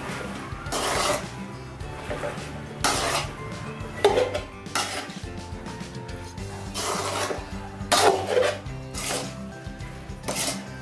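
Metal spatula scraping and knocking against a metal kadai while chunks of potato and capsicum are stirred and tossed, in uneven strokes every second or two.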